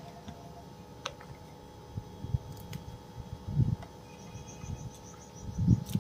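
Quiet outdoor background with a run of faint, quick high chirps about four to five seconds in, under a steady faint hum. A few dull low thumps come through, the loudest about three and a half seconds in and again near the end.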